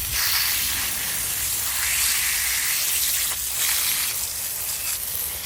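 Pressure washer jet spraying water onto dishwasher racks and parts, a steady hiss with a low rumble underneath, flushing out built-up grime.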